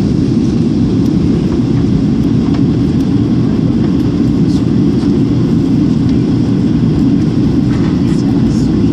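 Cabin noise inside a Boeing 737 airliner on its landing approach: a loud, steady, low rush of jet engines and airflow past the fuselage.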